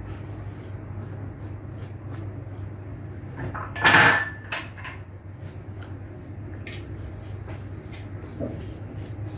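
Kitchen handling sounds: scattered light clicks and taps, with one loud metallic clatter about four seconds in that rings briefly, like a metal pan or utensil being set down, over a steady low hum.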